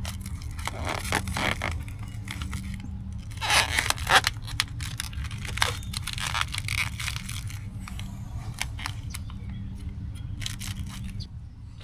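Pipe insulation wrap being handled and wrapped around water pipes: irregular crinkling, tearing and scraping, loudest about three and a half to four seconds in, over a steady low rumble.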